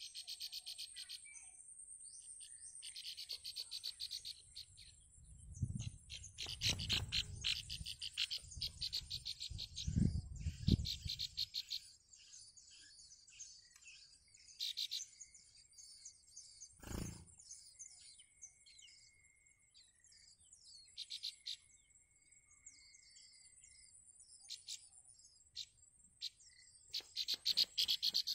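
Nestling songbirds begging in repeated bursts of rapid, high-pitched chirps while an adult brings food to the nest, with a steady high insect buzz behind. Low rustling and bumps come a quarter to a third of the way in, and there is a single knock a little past the middle.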